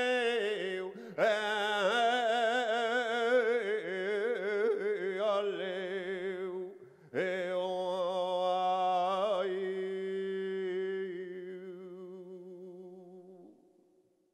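Unaccompanied flamenco singing (cante) by a male voice: long, wavering, ornamented phrases with heavy vibrato, a long held note about halfway through, then fading out near the end.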